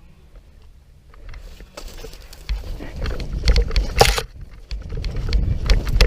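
Rustling, crackling and thumping of someone moving quickly through leaves and brush, with a heavy rumble of movement against the microphone that grows louder about two and a half seconds in and peaks in a loud rush about four seconds in.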